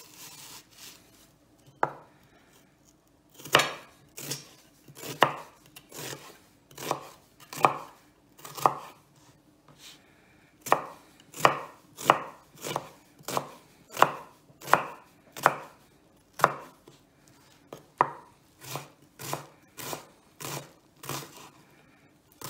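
Kitchen knife chopping a brown onion on a wooden chopping board: a series of sharp knife strikes, uneven at first, then after a short pause about ten seconds in, a steady run of about one and a half strikes a second as the onion is diced small.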